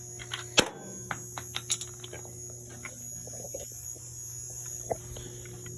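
Light clicks and taps of nut drivers being handled and pulled from a metal toolbox drawer, with one sharper click about half a second in, over a steady electrical hum.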